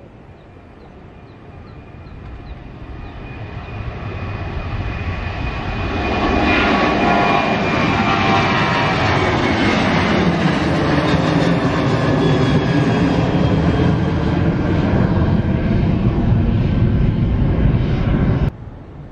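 Garuda Indonesia Boeing 737-800's twin CFM56-7B turbofan engines at takeoff power. The jet noise builds as the airliner rolls and climbs toward the microphone, then holds as a loud steady roar with a whine that falls in pitch as it passes overhead. It cuts off suddenly near the end.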